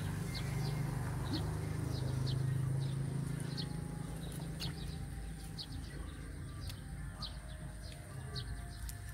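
Small birds chirping, short high chirps about once a second, over a low hum that fades after the first few seconds.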